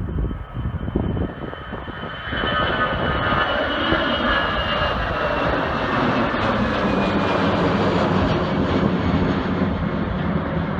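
An airliner's engines passing close by, growing loud about two seconds in and holding steady, with a whine that slowly falls in pitch.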